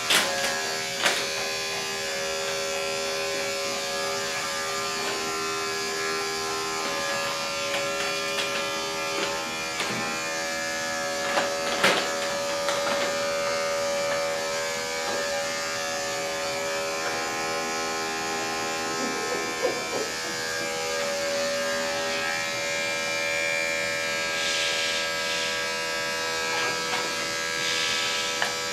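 Electric dog-grooming clippers running steadily: a constant buzzing hum as the blade is worked through the dog's coat, with a few sharp clicks along the way.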